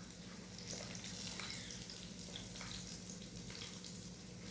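Faint, steady sizzle of fat frying, with a few light clicks of handling.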